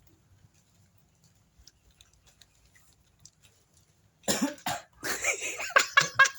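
A person coughing hard in a fit of repeated coughs, starting about four seconds in, brought on by smoking hand-rolled tobacco.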